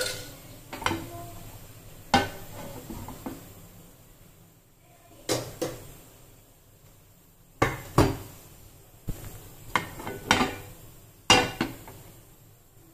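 Cookware and utensils clinking and knocking: about a dozen sharp, separate knocks and clinks at irregular intervals, with short quiet gaps between.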